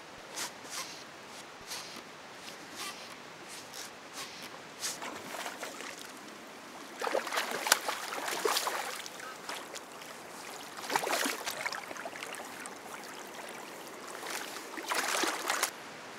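Shallow river water splashing as a hooked Atlantic salmon is brought in and handled, with three bigger bursts of splashing about seven, eleven and fifteen seconds in. Smaller splashes and lapping water come between them.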